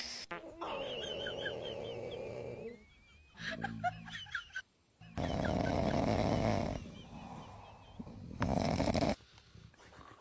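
Dog snoring: three long, rasping snoring breaths, the first two each about two seconds long and a shorter one near the end, with a brief sound falling in pitch between the first two.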